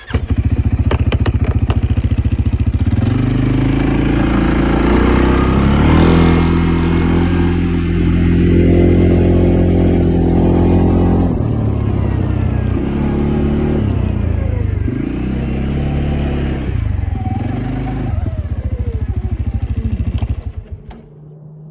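Vehicle engine running as it drives off, its pitch holding and then shifting in steps several times as the speed changes. It drops away near the end as the vehicle stops.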